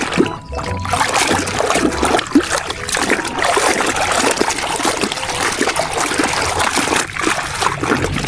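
Water splashing and trickling over a muddy toy as it is washed clean, a continuous wet rush full of small splashes.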